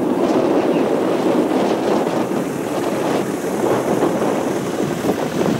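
Strong mountain wind buffeting the camera microphone, a loud, gusting rumble with no engine or voice in it.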